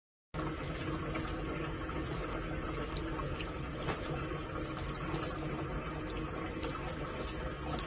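Steady hiss like running water, with scattered faint clicks and drips.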